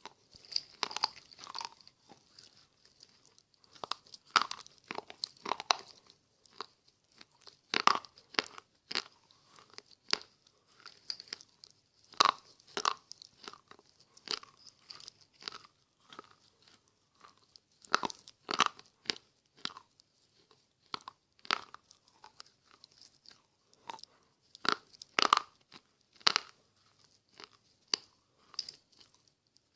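Slate pencils being bitten and chewed close to the microphone: sharp, irregular crunches, often several in quick succession, with short pauses between.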